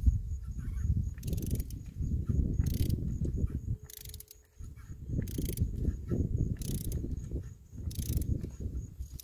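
Ratchet wrench with a 27 mm socket on an extension loosening the oil filter cartridge cap on a Ford Bronco's 2.7L turbo engine. A short run of ratchet clicks comes on each back-swing, about every second and a half, with a low rumble between the strokes.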